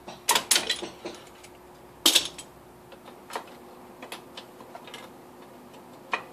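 Metal hand tools clicking and knocking against a Nissan V6 engine's bottom end: a quick cluster of clicks in the first second, the loudest knock about two seconds in, then scattered single taps.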